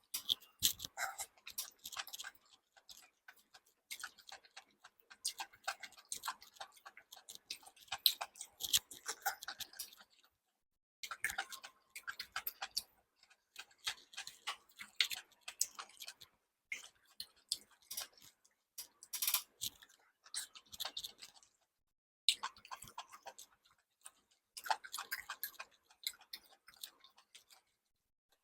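Close-miked eating and food-handling sounds: dense runs of quick clicks, crackles and chewing, broken by a few short silent gaps.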